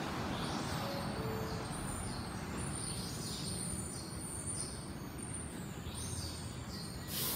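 An R142 subway train standing at the platform with a steady low hum, while birds chirp over it in repeated short calls. Near the end comes a brief burst of hiss.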